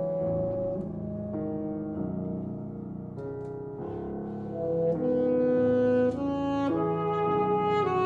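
Live classical chamber music: a wind instrument plays long held notes over piano accompaniment, getting louder about halfway through.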